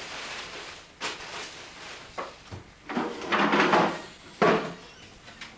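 Drawers or cupboard doors being opened and shut: a few knocks, a longer louder scraping stretch in the middle, and a sharp bang near the end.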